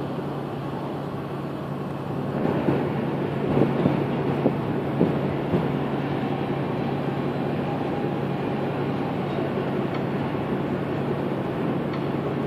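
A boat's engine running with a steady low hum under a rushing noise of wind and water. The rushing grows louder about two seconds in, with a few brief gusts.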